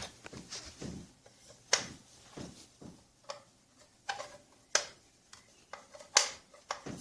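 Scattered sharp clicks and light knocks of metal parts being handled while the back cover of a Rancilio Rocky grinder is fitted and screwed on, with the loudest clicks about two, five and six seconds in.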